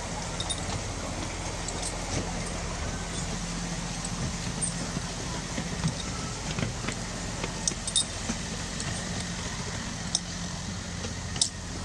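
Miniature railway train running along its track behind the diesel-outline locomotive No. 6610: a steady low hum from the locomotive, with scattered clicks and light knocks from the wheels on the rails.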